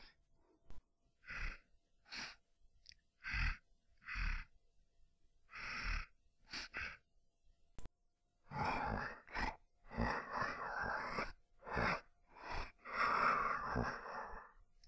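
Zombie sound effects voiced by a person: a string of short, breathy vocal bursts with pauses between them, then, from about halfway, a denser run of longer, rougher breaths.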